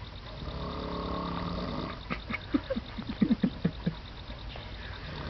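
A person snoring: one long, pitched snore on the in-breath, then a rapid, irregular run of short sputtering bursts about two seconds in.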